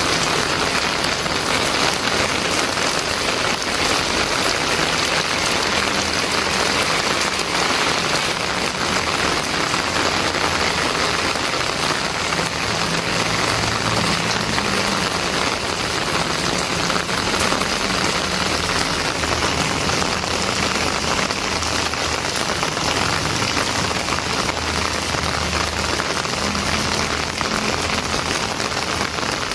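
Heavy rain pouring steadily onto wet pavement and roofs, a dense, even hiss of drops with no let-up.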